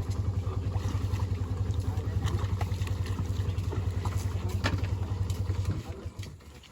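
A small engine running with a fast, even beat, which cuts off suddenly near the end.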